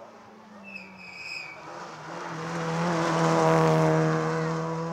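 Rally car engine held at high revs as the car climbs toward and passes close by, growing steadily louder to its loudest about three and a half seconds in.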